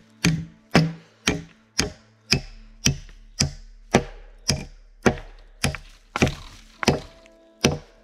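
An axe chopping wood: about fourteen sharp strokes at roughly two a second, spacing out slightly toward the end.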